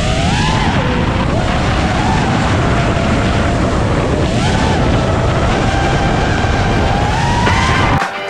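FPV quadcopter's brushless motors whining, the pitch sliding up and down with the throttle, over heavy wind rumble on the onboard camera's microphone. Near the end it cuts off abruptly and music begins.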